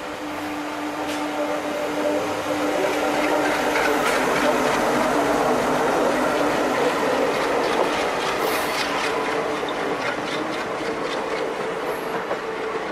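A diesel locomotive passes close by, its steady engine drone swelling to its loudest about four to six seconds in. Its passenger coaches then roll past, the wheels clicking over the rail joints.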